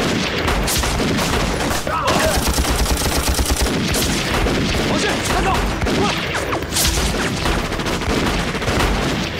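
Dense gunfire in a firefight: many pistol and rifle shots going off rapidly and overlapping.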